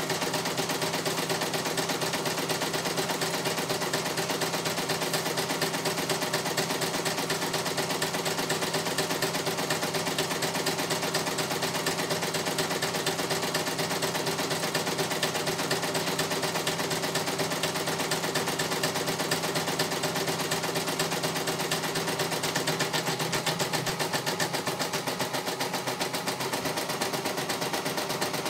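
CNY E900 computerized embroidery machine stitching a design: a steady, rapid, even run of needle strokes that goes on without a break.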